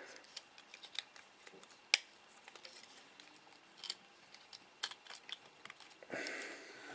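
Small plastic clicks and taps from hands handling a Hubsan X4 H107L mini quadcopter's body and fitting it back together. A sharper click about two seconds in is the loudest, and a soft rustle follows near the end.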